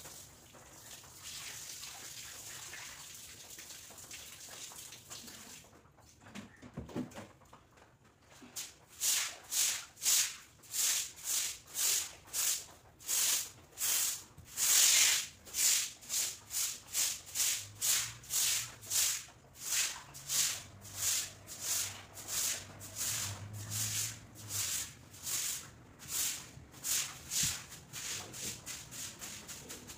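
Water spraying from a hose onto a wall and floor for the first few seconds. From about eight seconds in, a hand broom swishes back and forth over a wet floor, about two strokes a second, in a steady scrubbing rhythm.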